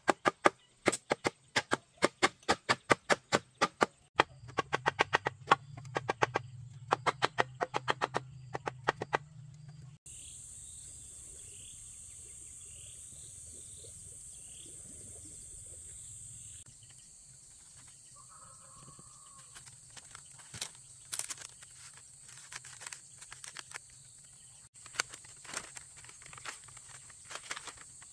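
Sharp, hollow knocks of wood striking a bamboo chair frame, about three a second for the first nine seconds. Then a steady high insect drone with a bird chirping over it, followed near the end by light clicks and rustles of split bamboo strips being handled.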